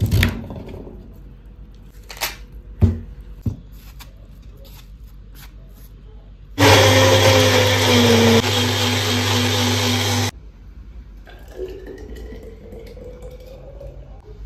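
A few knocks of a knife on a wooden cutting board while watermelon is cut. Then a NutriBullet personal blender runs for nearly four seconds, blending watermelon chunks into juice, its pitch dropping slightly halfway through. Near the end, juice pours from the blender cup into a glass bottle with a faint rising tone as the bottle fills.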